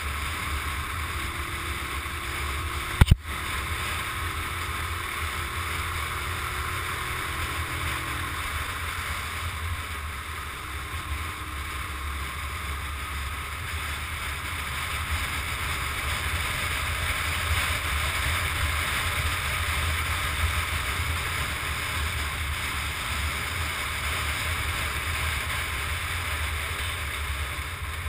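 Wind rushing over the microphone of a camera on a moving motorcycle, with the engine faint beneath it. One sharp knock about three seconds in.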